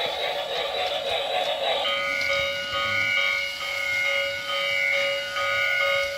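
Battery toy steam train's built-in sound effects: a rhythmic electronic chuffing hiss that, about two seconds in, changes to a repeating electronic tune of steady beeping tones.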